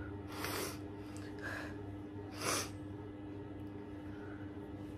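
A woman crying, sniffling and drawing short breaths through her nose three times, the last the loudest, over a faint steady hum.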